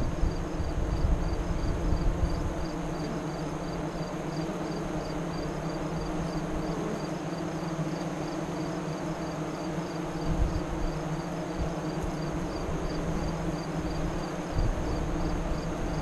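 Honey bees buzzing in a steady hum at the hive entrance, close to the microphone. Gusts of wind rumble on the microphone in the first couple of seconds and again around ten and fifteen seconds in.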